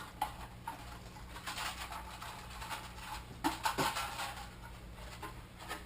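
Rustling and light knocks of packaging and a fiberglass model-glider fuselage being handled, busiest about three and a half seconds in, over a faint steady electrical hum.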